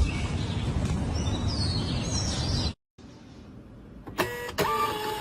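Steady outdoor background noise with a few high bird chirps. After a sudden cut and a brief silence come a quieter stretch, a couple of clicks, and a steady held tone for about a second near the end.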